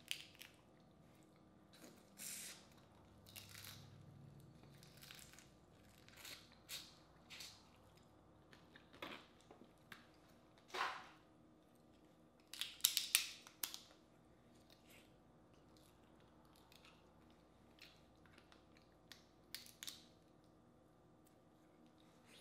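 Boiled crawfish shells being cracked and peeled by hand, with chewing: irregular short crunches, snaps and wet squishes. The loudest is a quick run of cracks a little past halfway.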